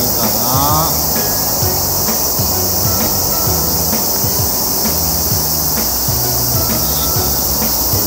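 A steady, high-pitched chorus of summer insects, with quiet background music underneath.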